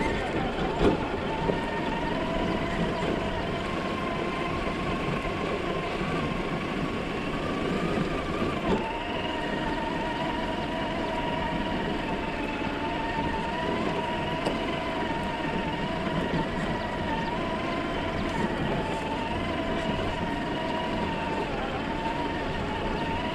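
Traxxas TRX-4 Bronco RC crawler's electric motor and gear transmission whining at crawling speed, the pitch wavering up and down with the throttle. A couple of sharp knocks come in the first two seconds, typical of the chassis bumping over rough ground.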